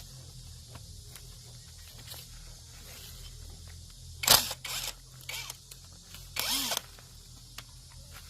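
Tools working on the metal parts of an industrial crusher: a sharp metallic clank about four seconds in, a couple of shorter knocks or scrapes, then a half-second scraping burst, over a low steady hum.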